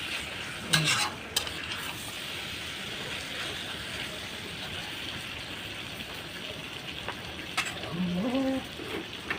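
Food sizzling steadily as it fries in a pan while it is being stirred, with a few sharp knocks of the stirring spoon against the pan, the first near the start and another near the end.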